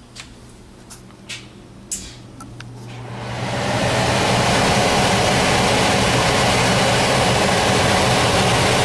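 A few light clicks, then about three seconds in the heat pump air handler's blower motor starts and spins up into a steady rushing run with a low hum. It was switched on by jumpering the thermostat's red wire to the green fan wire.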